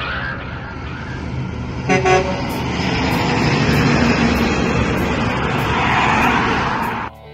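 A semi truck pulling an aluminium livestock trailer passes close by, its engine and tyre noise swelling as it goes past, with a short horn toot about two seconds in. The sound cuts off suddenly near the end.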